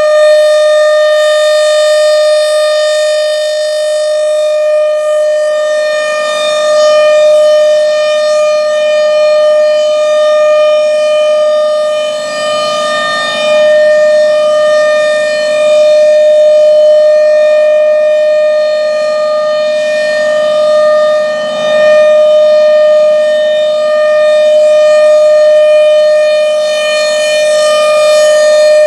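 Federal Signal Thunderbolt 1000 blower-driven rotating tornado siren sounding a steady, high wail at full speed during a test. Its pitch holds level while the loudness swells and dips about every nine seconds as the rotating horn sweeps toward and away.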